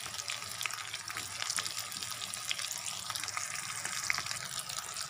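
Bitter gourd chops stuffed with mashed potato deep-frying in hot mustard oil in a kadai on a low flame: a steady sizzling hiss with many small crackles and pops.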